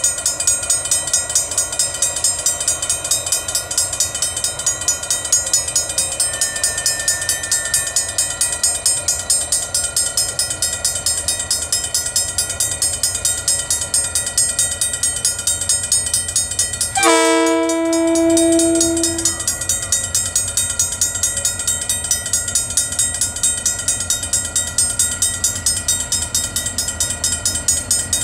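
Two DFB-class diesel locomotives approaching under power, with a rapid regular pulsing throughout. About seventeen seconds in, the locomotive horn sounds one chord-like blast of about two seconds.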